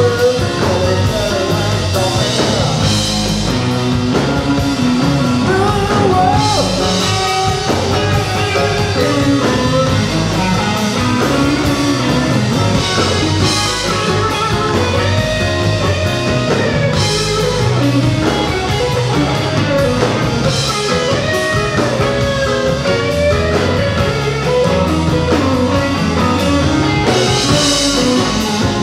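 Rock band playing live, with guitar, bass and drum kit at a steady, loud level.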